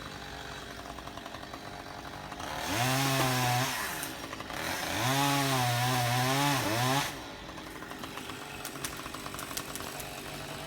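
Chainsaw idling, throttled up twice: briefly about three seconds in, then for about two seconds, each time rising in pitch, holding and dropping back to idle.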